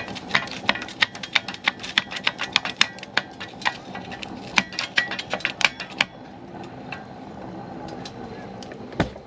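Small pieces of firewood clacking and knocking against the steel firebox of a wood stove as they are fed and pushed in by hand, a rapid irregular run of sharp clicks that stops about six seconds in. One single thump near the end.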